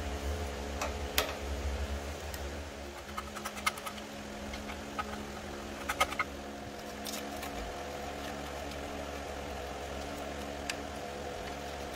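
Scattered metallic clicks and clinks of hand tools on the mini bike's engine mounting bolts as they are loosened, some in short clusters, over a steady background hum.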